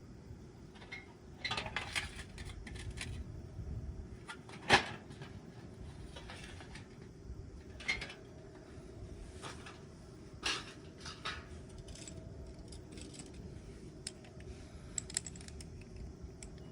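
Light metal parts clinking and clattering as they are handled, in scattered bursts with one sharper metallic knock about five seconds in.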